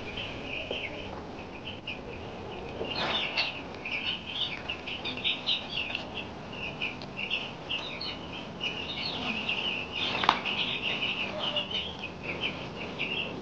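A brood of five-day-old broiler chicks peeping nonstop, many short high chirps overlapping. There is a knock about three seconds in and a sharper, louder one about ten seconds in.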